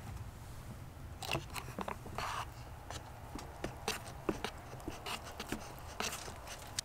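Wooden chopsticks stirring instant noodles in a paper cup, with a string of light clicks and scrapes as they knock against the cup wall.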